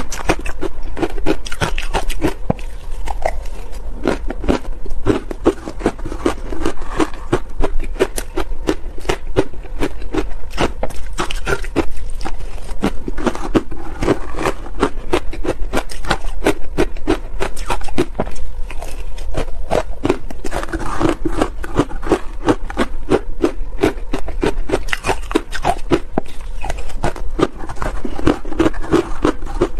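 Close-miked crunching of shaved ice dusted with matcha powder: a spoon scraping and stirring through the ice in a plastic bowl and ice being chewed, a dense, unbroken run of crackles and crunches.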